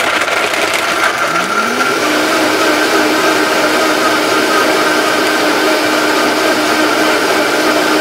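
High-powered countertop blender crushing ice with coconut milk and protein powder into a thick shake. The motor's pitch rises over the first two seconds as the speed dial is turned up, then holds steady.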